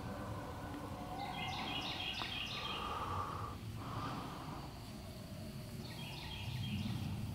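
Steady low outdoor rumble with a songbird singing two short phrases of quick high notes, one about a second in and another near the end.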